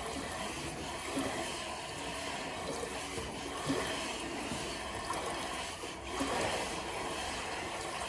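Steady rushing of running water, even throughout.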